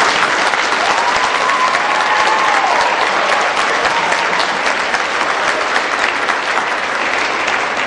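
Audience applauding: dense, steady clapping that swells at the end of a school orchestra's piece and eases slightly near the end.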